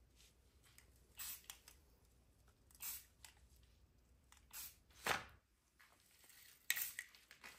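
Aerosol spray-paint can giving short hissing sprays, about five of them, each well under a second and spaced unevenly; the one about five seconds in is the loudest.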